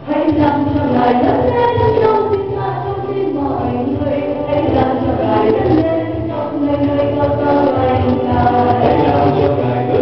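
A group of voices singing an action song in chorus over backing music.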